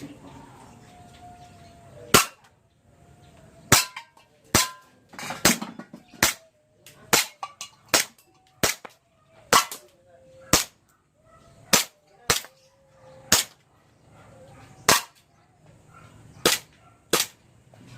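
WE M1911 gas blowback airsoft pistol being fired in single shots, about seventeen sharp cracks spaced half a second to a second and a half apart.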